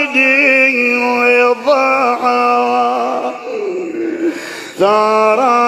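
A man chanting an Arabic mourning lament (na'i) solo, drawing out each word in long held, ornamented notes. The voice drops to a softer, lower phrase about three seconds in, then returns to full strength near the end.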